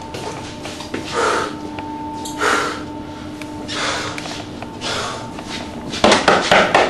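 A person breathing heavily, four loud breaths about a second and a quarter apart, then a quick run of knocks on a door near the end.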